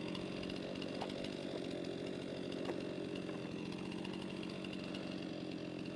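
Stihl MS311 two-stroke chainsaw running steadily at an even, unchanging pitch.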